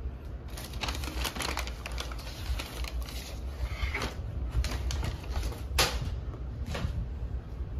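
Paper takeout bag crinkling and plastic food containers clicking and knocking on a wooden desk as they are handled, an irregular run of sharp clicks and crackles.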